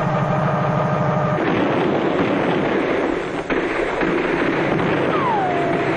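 Helicopter engine and rotor running: a fast low pulsing with a steady whine over it, giving way about a second and a half in to a dense noisy rumble. Near the end a tone slides down in pitch and then holds.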